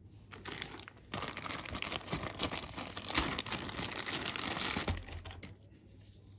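Clear plastic zip bag crinkling as it is handled and a small item is pulled out of it. The crinkling starts about a second in and dies away near the five-second mark.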